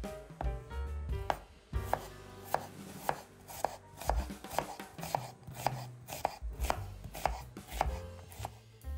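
Chef's knife slicing an onion on a wooden cutting board: crisp, regular cuts about twice a second, each ending in a knock of the blade on the board.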